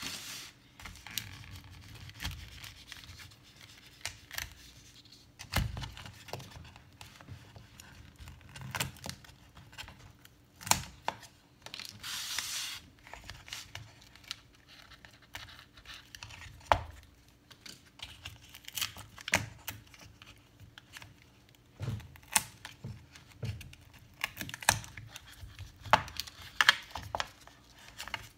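The glued-in battery of a MacBook Pro Retina 13-inch A1502 being pried out of its case: adhesive tearing and crackling in short spells, with scattered clicks and scrapes.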